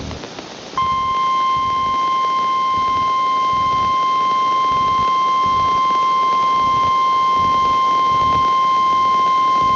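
Emergency Alert System warning alarm: a single steady tone of about 1050 Hz, the National Weather Service's warning tone, cuts in about a second in and holds at one pitch and level. Beneath it runs a faint hiss of broadcast static.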